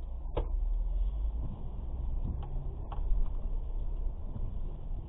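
Low, steady rumble of a slowly moving vehicle heard from inside its cabin, with a few short clicks, the first about half a second in.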